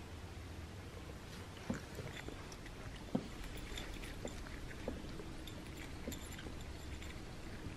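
Cat eating dry kibble from a small dish: scattered soft clicks and ticks of kibble and chewing, the loudest about 1.7 and 3 seconds in, over a low steady room hum.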